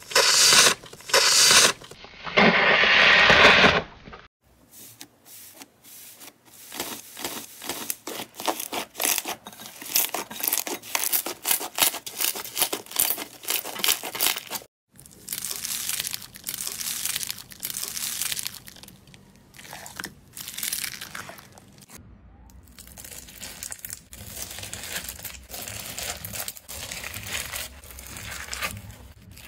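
Hands squeezing, pressing and tearing clay and slime, close to the microphone: a few loud rustling squeezes in the first four seconds, then dense fast crackling and popping, and a softer crackle over a low hum in the last part.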